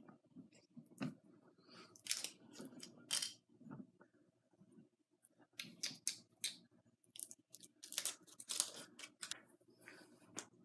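Foil wrapper of a Kinder Surprise chocolate egg being peeled off and crumpled by hand: irregular crinkling crackles with short pauses between them.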